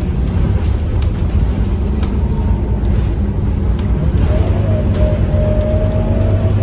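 Scania K230UB city bus heard from inside the cabin: its Scania DC9 five-cylinder diesel runs with a steady low drone as the bus drives, with occasional light clicks and rattles. A thin whine comes in about four seconds in.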